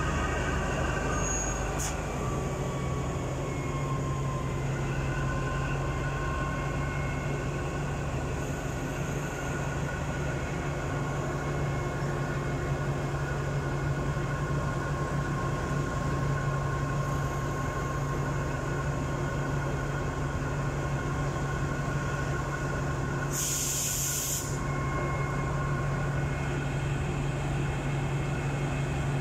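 Alsthom diesel-electric locomotive no. 4301 idling at a standstill: a steady low engine hum with fainter steady whines above it. Late on, a short hiss of air lasting about a second.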